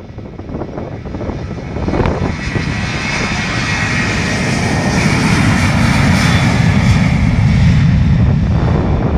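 Airplane engines running as the aircraft taxis along the runway at close range, growing louder over the first two seconds and then holding loud.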